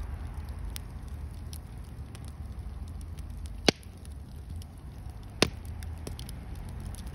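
Wood log fire burning with scattered faint crackles and two sharp, loud pops, the first a little past halfway and the second nearly two seconds later, over a steady low rumble.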